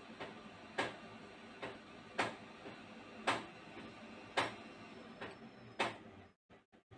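A series of sharp clicks, about one a second at slightly uneven intervals, over a low steady background hum; the sound drops out briefly near the end.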